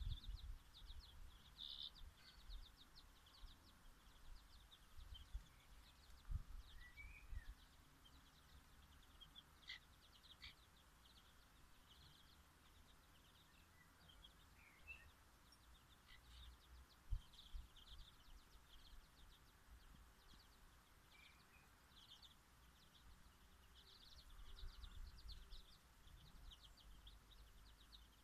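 Faint outdoor ambience of soft, high chirping that comes in repeated clusters throughout, with a few short high calls and occasional low rumbles.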